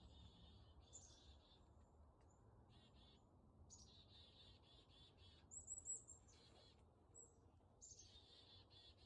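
Faint songbird singing the same phrase over and over: a high down-slurred note that runs into a fast trill. A higher, brief trill comes about halfway through.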